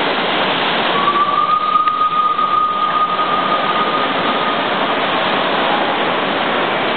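Live-steam ride-on miniature railway running, with a steady loud hiss throughout. A single steady whistle tone starts about a second in and holds for about three seconds.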